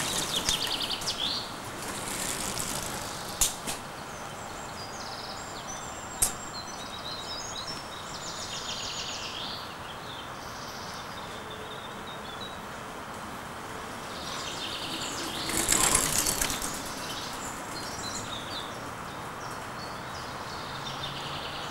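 Birds chirping and singing on and off over steady outdoor background noise, with two sharp clicks a few seconds in and a brief louder burst of rushing noise about sixteen seconds in.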